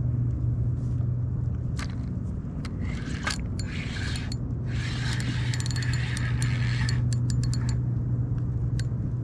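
Spinning reel being cranked against a hooked small bluefish, with ratcheting clicks and a scratchy rasp of reel and line that is loudest through the middle. A steady low hum runs underneath.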